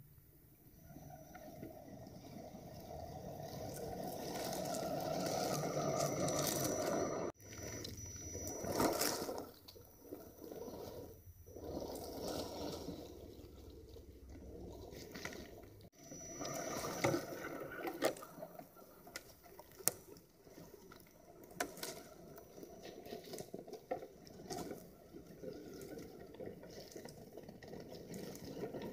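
Axial SCX10 Trail Honcho 1/10-scale RC crawler's electric drivetrain whining thinly and high as it drives over dry leaves and twigs, its tyres crackling and snapping sticks. It grows louder over the first several seconds as it approaches, breaks off abruptly twice, then goes on in uneven crunches and sharp snaps.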